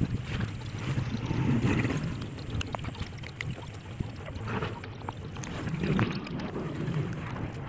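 Light plastic clicks and taps as a motorcycle's handlebar horn-switch housing is fitted back together by hand, over a steady low rumble of wind on the microphone.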